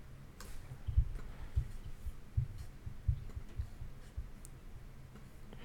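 Faint, irregular low thumps and a few light clicks from a keyboard and mouse being worked at a desk.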